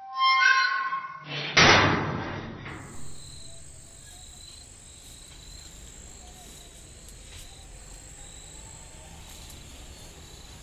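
Metal grille gate creaking, then slamming with one loud metallic clang about a second and a half in. After it, a steady high chirring of crickets.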